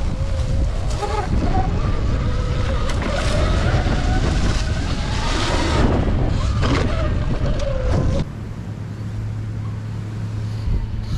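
Heavy wind buffeting the microphone, dropping suddenly about eight seconds in to a quieter steady low hum.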